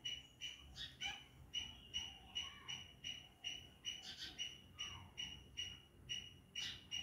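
Short, high-pitched chirps repeated steadily, about two or three a second, with a few fainter, lower calls in between.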